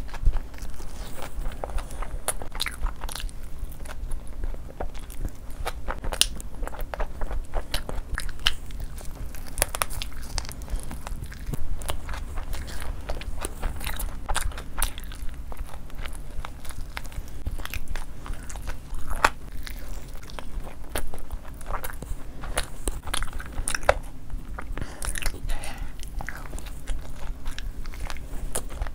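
A person biting and chewing food close to the microphone, with many irregular sharp crunches and mouth clicks.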